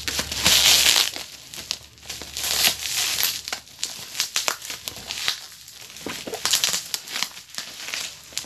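Clear plastic wrapping crinkling and rustling in irregular bursts as it is pulled off a product box, loudest about half a second in.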